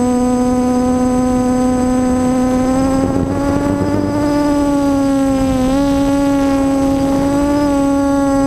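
Multicopter's electric motors and propellers whining steadily, heard from the camera on board. The pitch rises a little a few seconds in, dips briefly just after the middle, then holds as the throttle changes. Wind rumbles on the microphone underneath.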